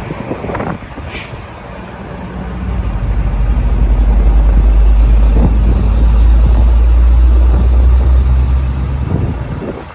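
Heavy truck's engine running with a deep, low rumble that swells over the first few seconds, holds loud, then drops away shortly before the end.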